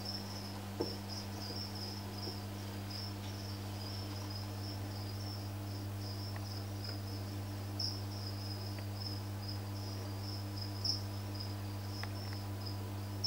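Cricket chirping in a continuous pulsing trill over a steady low electrical hum, with a few soft clicks.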